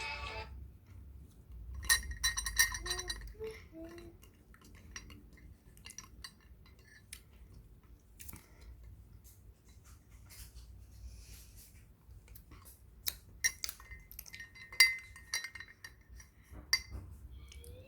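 Hard objects clinking against glassware, a tight run of clinks about two seconds in and more toward the end, each ringing briefly.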